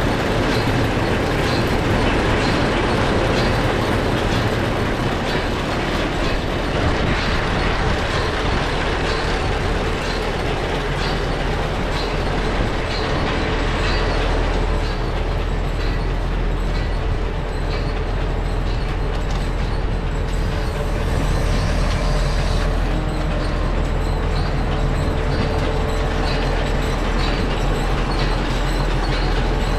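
Claas Rollant 540RC round baler running steadily while driven by a tractor: a continuous mechanical clatter over a low, steady engine hum.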